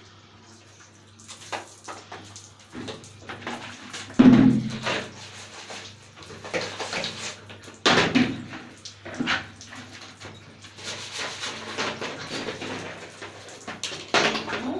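Plastic vacuum cleaner parts being handled and rinsed with water: a few sharp knocks and clatters, the loudest about four seconds in, between stretches of splashing water.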